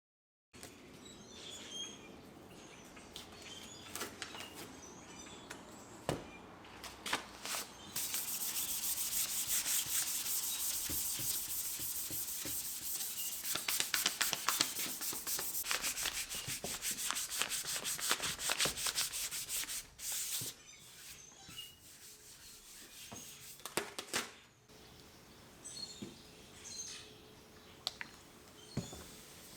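Sanding on a cypress board: a steady abrasive hiss that grows louder for about twelve seconds in the middle, with quieter rubbing and light clicks before and after. Birds chirp faintly in the background.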